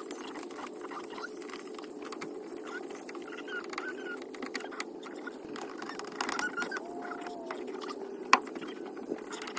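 Light clicks and short squeaks from plastic interior trim and fasteners being handled and fitted, over a steady low hum, with one sharper click about eight seconds in.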